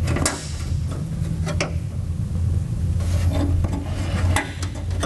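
Plastic window guide bushings being pressed and snapped into the steel window glass bracket inside a Fox Body Mustang door: hands and plastic rubbing against metal, with a few sharp clicks, over a steady low hum.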